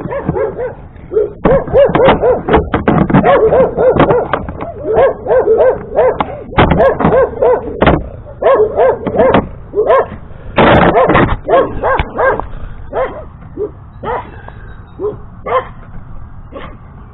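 A dog barking and yipping over and over, in quick runs of short calls with brief pauses between runs.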